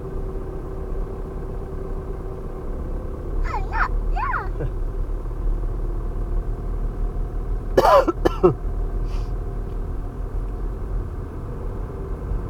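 Steady engine and road rumble inside a slowly moving Ford Mondeo, with a steady hum. Two short, high, wavering vocal squeals come about three and a half seconds in and again around eight seconds in, the second one louder.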